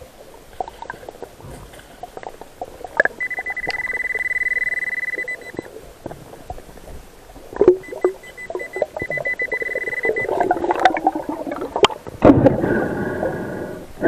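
Underwater metal detector sounding a steady high beep for about two and a half seconds, then again for about two seconds, signalling a buried metal target in the sand. Around it are clicks and churning water noise that grow loud near the end as the sand is dug by hand.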